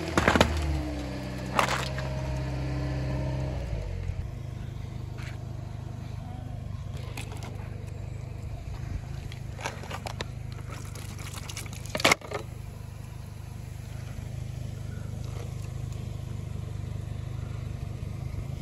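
A car tyre crushing aluminium Coca-Cola cans with a loud crunch at the start, over a car engine running at low revs that settles into a steady low idle after about four seconds. A few sharp crinkles follow as the flattened cans are handled, the loudest about twelve seconds in.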